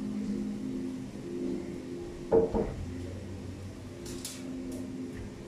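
A steady low hum with a short knock or clatter about two seconds in, the loudest sound here, then a few faint brief scrapes about four seconds in.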